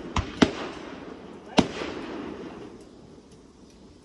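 Aerial fireworks going off: three sharp bangs, two close together right at the start and one about a second and a half in, each followed by a rumbling echo that dies away.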